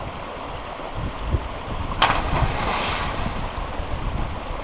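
A person jumping feet or body first into a deep rock pool: a sudden splash about two seconds in as they hit the water, followed by a second of churning water. Wind noise on the microphone underneath.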